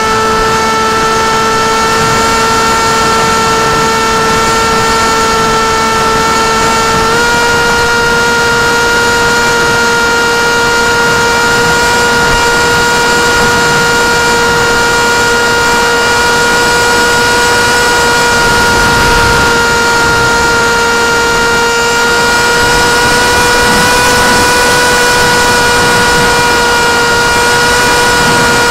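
Sunnysky 2204 brushless motor spinning a 6x4.5 propeller on a foam flying wing, heard close up from a camera strapped to the airframe: a loud steady high drone over a rush of wind. Its pitch steps up slightly about seven seconds in.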